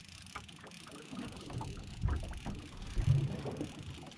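Small fishing boat drifting at sea: water slapping against the hull, with a few low thumps about two and three seconds in and light wind on the microphone.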